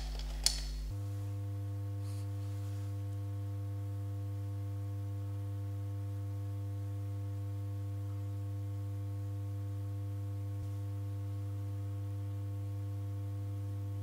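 A steady low hum with a buzzy edge that jumps up about an octave about a second in and then holds unchanged. A short click comes about half a second in.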